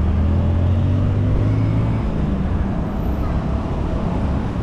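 A motor vehicle's engine hums low and steady, fading out about two seconds in, over steady wind and road noise from riding a bicycle.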